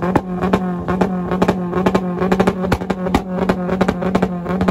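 Car engine revved hard and held at a steady high pitch against its rev limiter, stuttering rapidly and evenly as the limiter cuts in and out.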